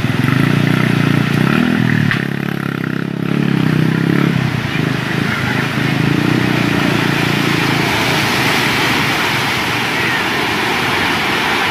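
A motorcycle engine running over the rush of a surge of muddy water breaking over a road. After about four seconds the engine fades and the steady roar of churning floodwater takes over.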